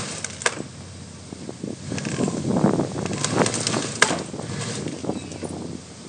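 Tree trunk cracking and snapping under strain while it is forced over, with branches rustling. Irregular sharp cracks, the loudest about four seconds in.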